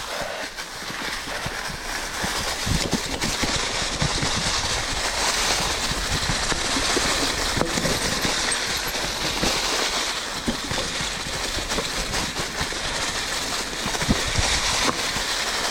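Mountain bike rolling over a leaf-covered dirt trail: a steady rush of tyre and trail noise with frequent low knocks from bumps.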